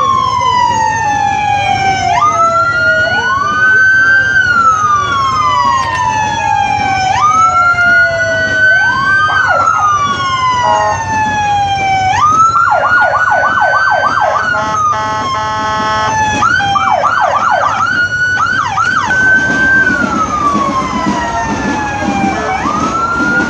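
Electronic emergency-vehicle sirens wailing, more than one at a time, each rising quickly and falling slowly over a few seconds. They switch twice to a fast yelp, with a short steady horn-like note between the yelps.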